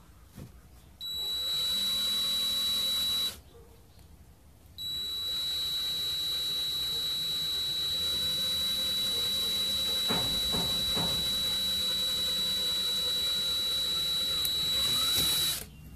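DeWalt cordless drill running with a steady high whine as it bores a 1/8-inch pilot hole through the thin steel wall of a tomato paste can. It runs in two spells: a short burst, a pause of about a second and a half, then a long run of about ten seconds.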